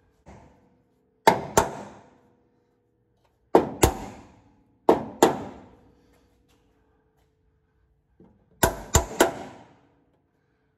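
Steel hammer blows on the underside of a car's sheet-metal floor pan, knocking it up to make clearance for the driveshaft. About ten sharp strikes come mostly in quick pairs, with a triple near the end, and each leaves a short metallic ring.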